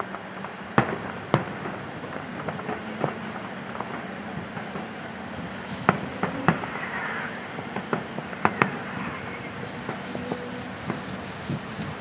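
Aerial fireworks shells bursting: about six sharp bangs stand out, two of them in a quick pair near the end, among many smaller pops and crackles.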